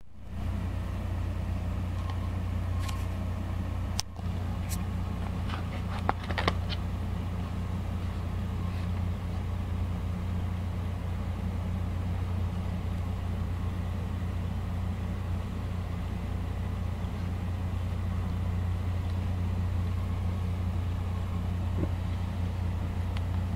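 A steady low hum, with a few sharp clicks and taps about four to six and a half seconds in as the phone and its box are handled.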